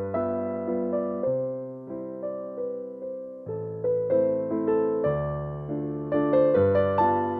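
Background music: a piano or electric piano playing gentle chords, each struck and left to fade before the next.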